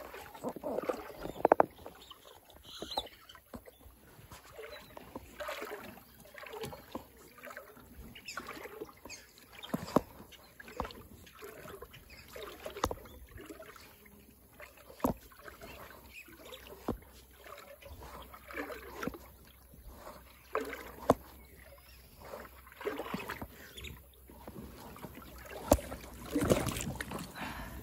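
Water splashing and sloshing around a rubber inner-tube fishing float as it moves through shallow water, with irregular small splashes and a few sharp knocks.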